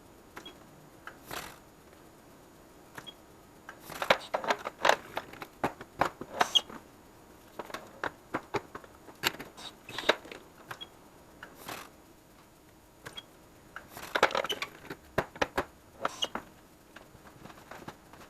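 Irregular light clicks and clattering knocks of small hard objects being handled, coming in clusters about four, ten and fourteen seconds in.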